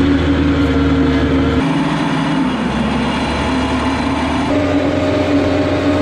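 Kioti RX7320 tractor's four-cylinder diesel engine running steadily under load as it pulls a disc-chisel plow, heard close up. Its tone shifts abruptly about a second and a half in and again a little past the middle.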